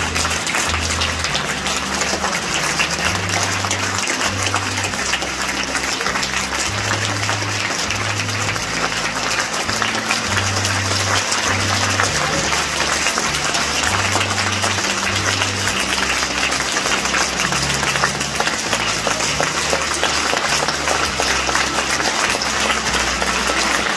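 Theatre audience applauding steadily, with music and a low bass line playing underneath.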